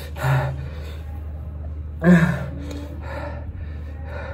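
A man gasping and breathing out hard against the burn of an extremely hot chili chip, with two loud gasps about two seconds apart and softer breaths between them.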